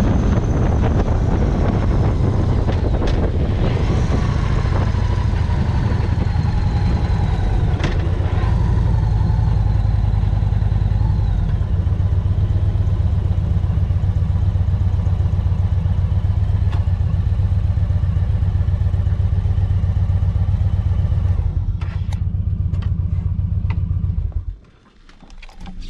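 Motorcycle engine running while riding, with a faint whine that falls in pitch over the first dozen seconds. The sound cuts off suddenly near the end.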